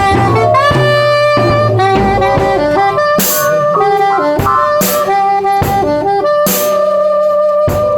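Live improvised band music: a melody line moving between held notes over drums, with loud crashes about every one and a half seconds.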